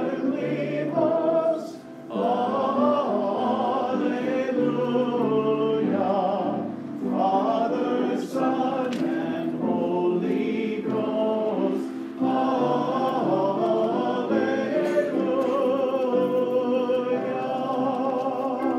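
A group of voices singing a hymn together, in long sustained phrases with brief breaks between them.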